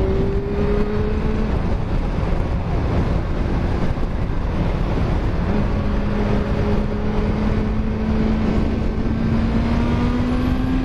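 Yamaha FZ1 inline-four motorcycle engine running while riding, under steady wind and road noise. The engine note drops away about a second and a half in, then comes back about five and a half seconds in and rises slowly as the bike gathers speed.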